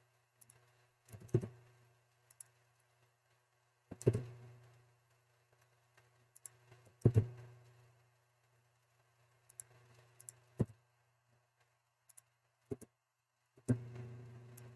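Computer mouse and keyboard clicks: a scattered series of sharp clicks and knocks a few seconds apart, several with a short low thud after them.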